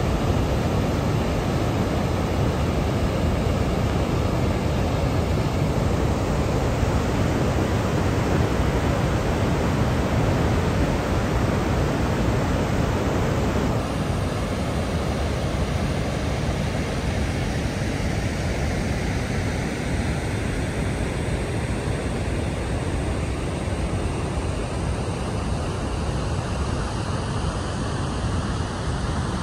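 Heavy flow of water pouring down the stepped stone spillway of a large masonry dam: a steady rushing noise of falling water, slightly quieter from about halfway.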